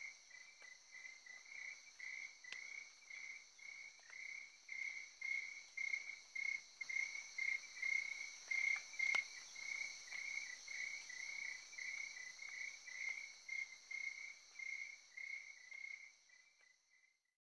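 Crickets chirping in a steady pulse, about two chirps a second over a continuous high insect trill, as night ambience; the sound stops near the end.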